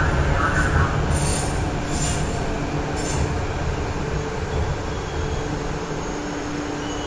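MTR Kwun Tong line C-train metro train pulling into the station and slowing: steady wheel and running rumble with a few brief high squeals in the first three seconds. The noise eases off gradually as the train slows, and a steady low whine comes in during the second half.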